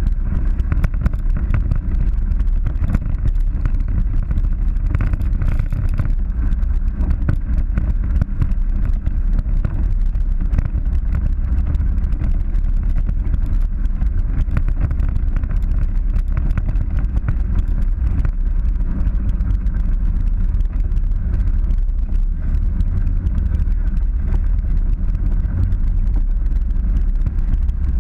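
Polaris 900 side-by-side driving over a rocky dirt trail: a steady engine drone with a heavy low rumble and a constant light rattle and clatter from the rough ground, picked up by a camera mounted on the hood.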